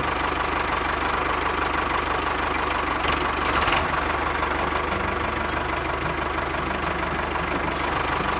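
Tractor engine idling with a steady, knocking chug; a brief louder noise comes over it about three seconds in.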